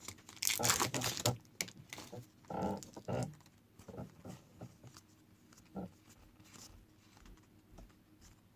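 Trading cards and a foil pack wrapper being handled: crinkling rustles loudest in the first second or so and again about two and a half to three seconds in, then scattered soft clicks as the cards are slid and flicked through by hand.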